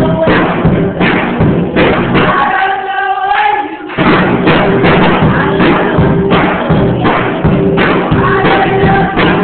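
Drum kit played in a fast, steady beat of drum and cymbal hits, with music and a singing voice underneath. The drumming stops for a moment about three seconds in, leaving a held note, then starts again.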